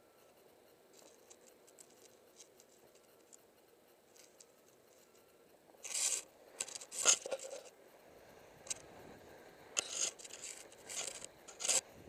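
Skis sliding over groomed snow, faint and even at first, then several sharp hissing scrapes as the edges bite in turns, about halfway through and again near the end.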